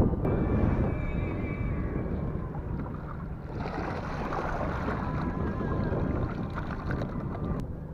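Water splashing and streaming off a mesh keepnet as it is lifted out of the sea beside a small boat, a hissing wash that starts about halfway through and cuts off suddenly near the end. A low steady rumble of wind on the microphone runs under it.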